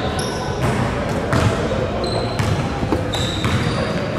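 Basketball game in a gym: a ball bouncing on the court several times, with sneakers squeaking in short high-pitched chirps, over a steady background of players' and spectators' voices echoing in the hall.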